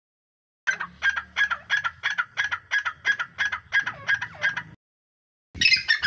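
Partridge call played from a mobile phone as a lure: a quick run of about a dozen repeated notes, about three a second. After a short pause, louder, harsher calls start near the end.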